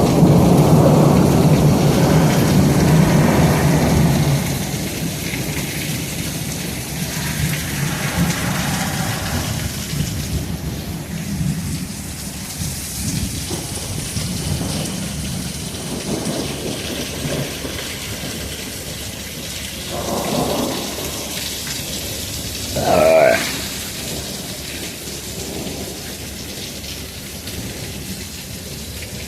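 Thunder rumbling loudly at the start and dying away over about four seconds, over steady heavy rain. A short, sharp wavering sound breaks through about three-quarters of the way in.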